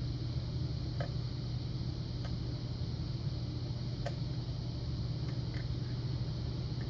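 A steady low hum, with a few faint, sharp clicks as a lock pick works the pin stacks inside a Yale Punisher padlock.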